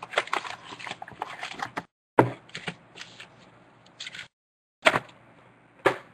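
Foil-wrapped trading-card packs rustling and crinkling as they are pulled from a cardboard box, then a few sharp clacks as the packs are set down on a wooden tabletop. The sound cuts out to dead silence twice.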